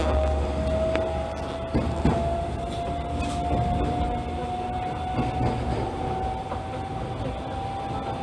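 Inside a JR Kakogawa Line electric train pulling away: the traction motor's whine climbs slowly in pitch as the train gathers speed, over the rumble of the car, with a few clicks from the wheels in the first couple of seconds.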